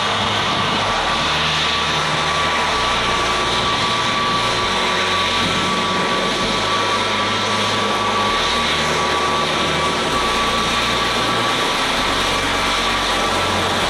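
Twin-engine jet airliner taxiing in at low power, its engines giving a steady whine over an even rushing noise.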